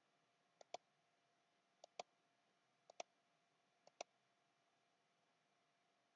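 Faint computer mouse clicks, four in all at about one a second, each a soft press followed by a sharper release, as radio buttons in a software dialog are selected.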